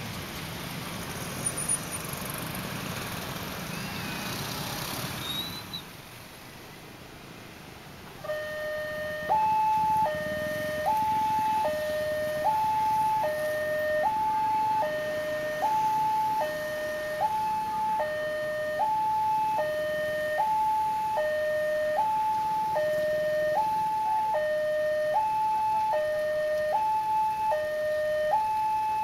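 Electronic railway level-crossing warning alarm sounding a two-tone hi-lo signal, switching pitch about every three-quarters of a second, starting about eight seconds in. Before it, a haze of motorcycle traffic noise.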